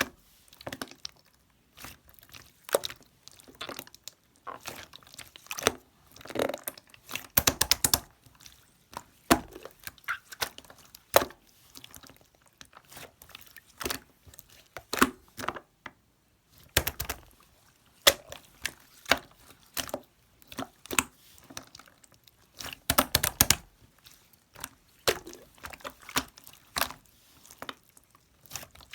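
Pink slime being handled: squished, stretched and pressed by hand, giving a steady run of sticky clicks and pops. Three times it breaks into a denser burst of rapid crackling.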